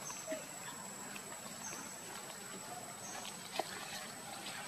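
Faint outdoor background with a steady high whine, a few soft short chirps and one sharp click about three and a half seconds in.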